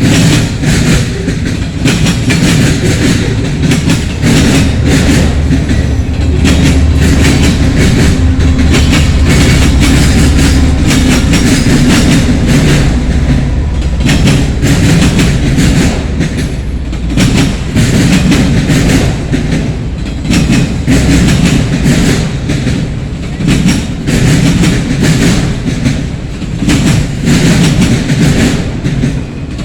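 Freight cars of a CSX train rolling past at speed, their wheels clattering in a quick uneven rhythm over the rail joints. A heavier low rumble swells from about four seconds in and eases off around eleven seconds.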